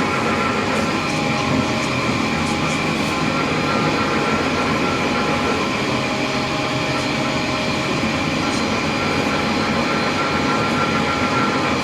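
Ring die granulator running steadily, a constant loud machine noise with several steady whining tones on top.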